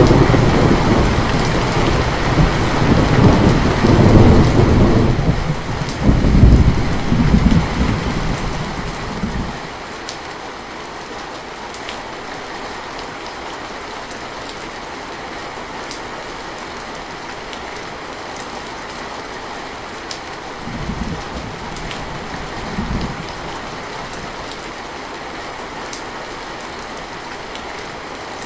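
Steady rain falling, with a long loud roll of thunder that fades out about ten seconds in, then two short, softer rumbles of thunder about two-thirds of the way through.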